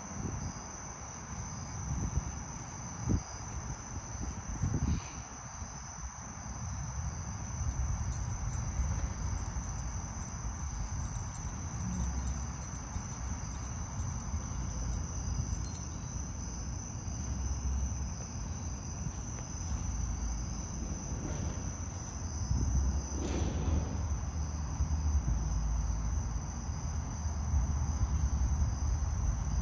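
Steady chorus of crickets, one continuous high trill, over a low rumble with a few short knocks from wind and handling on the microphone.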